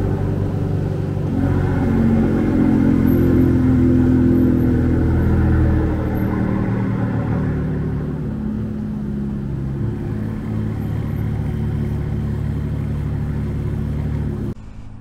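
Aston Martin DB11 AMR's twin-turbo V12 running as the car pulls away at low speed, the revs rising about a second and a half in, then settling and a little quieter after about six seconds.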